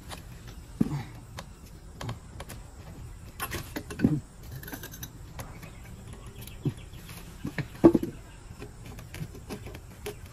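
Irregular small clicks and taps of hands and a tool working on a motorcycle's exhaust fittings, with a few sharper knocks about four and eight seconds in.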